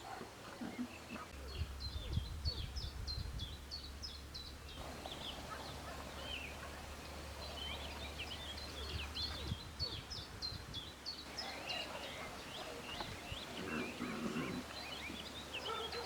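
Small birds chirping, with many quick high chirps in overlapping runs, over a low steady rumble.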